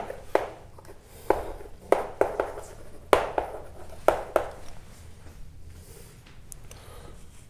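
A series of light, sharp taps at uneven intervals, about eight in the first four and a half seconds, dying away to faint room tone after that.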